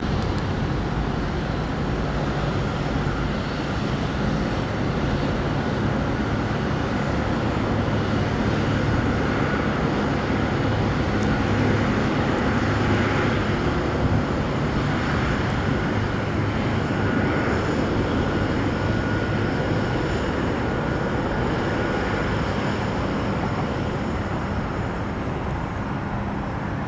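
Boeing 777-200ER's twin jet engines running at low taxi power as the airliner rolls slowly along the runway. The sound is a steady rumble with a thin, high, level whine over it.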